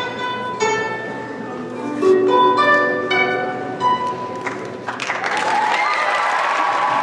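Long plucked zither playing its last few ringing notes, with a short run of quicker notes in the middle. About five seconds in the piece ends and the audience breaks into applause and cheering.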